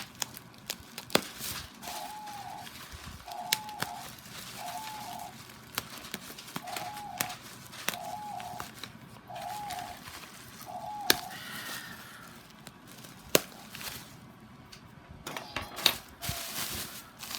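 Packaging being handled: plastic and paper crinkling and rustling, broken by sharp clicks and snaps. Through the middle of it, a run of seven short whistle-like calls, each rising then falling, repeats about every second and a half.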